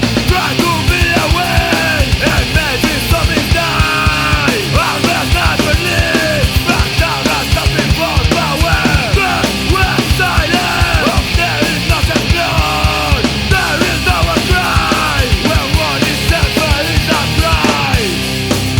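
Background rock music with a steady, driving drum beat and a vocal or lead line over it.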